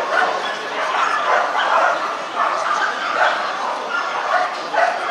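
Dogs barking and yipping over and over, with a murmur of crowd voices underneath.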